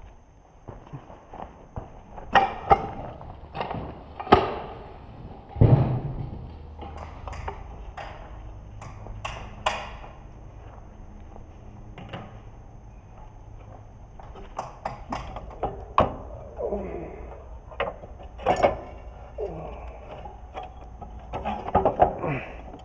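Irregular metal clanks, knocks and clicks of tools and parts being handled while trash whippers (row cleaners) are fitted to a planter's row units, with one heavier knock about six seconds in. A low steady hum runs underneath from about then on.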